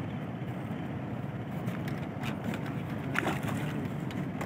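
A hooked fish thrashing at the water surface, with a few short sharp splashes later on, over a steady low rumble.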